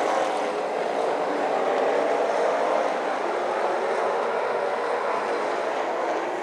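Outlaw super late model race cars' V8 engines running at racing speed around the oval, a steady drone of several engines at once.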